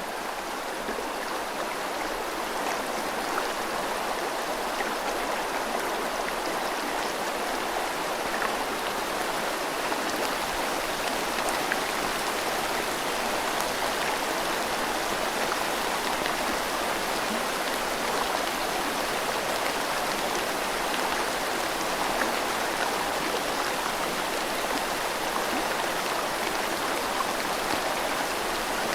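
A river flowing steadily under falling rain: a continuous rushing hiss flecked with small drop ticks. It swells up slightly in the first second or two.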